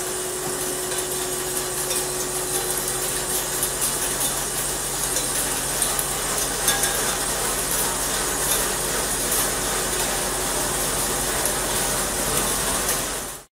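Large insert face mill on a 5-axis bridge gantry mill cutting a curved metal surface under coolant: a dense, steady cutting noise full of fine crackle, with a steady hum underneath. It cuts off suddenly near the end.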